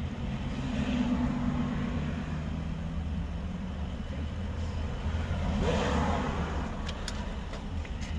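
Street traffic: a steady low engine rumble, with a vehicle passing close by about six seconds in. A few sharp clicks sound just after it.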